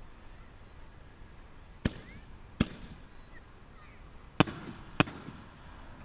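60-gram Inferno artillery shells going off: four sharp bangs in two pairs, the second pair a little louder, each with a brief echo.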